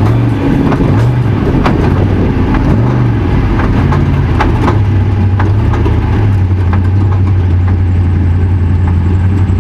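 Unlimited trophy truck's race engine rising and falling in pitch with repeated throttle blips, then running at a steady speed from about halfway, with scattered sharp clicks over it.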